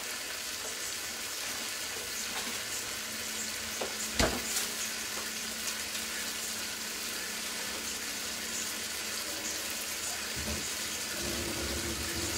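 Fish and cherry tomatoes sizzling steadily in a frying pan, with one sharp knock about four seconds in.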